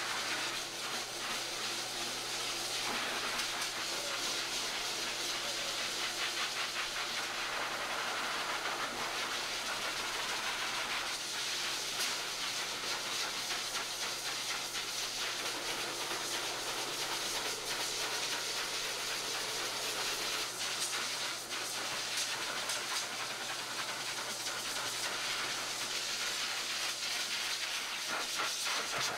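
High-velocity dog dryer blowing a steady rush of air through a Finnish Lapphund's thick coat, blasting out his shedding winter undercoat; the hiss shifts a little now and then as the nozzle moves.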